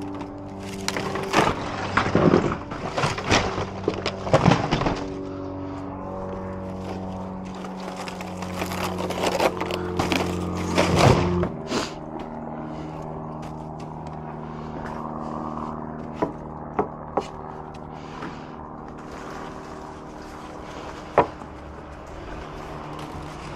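Weathered wooden boards and torn plywood scraps clattering, knocking and cracking as they are pulled loose and handled, with a run of sharp knocks in the first twelve seconds and only a few single clicks after that. A steady hum of several held tones runs underneath.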